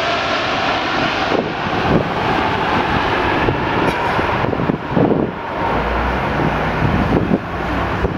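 Airbus A330-300 airliner's Rolls-Royce Trent 700 jet engines, a loud steady roar as it comes in to land. A low steady rumble joins in about six seconds in.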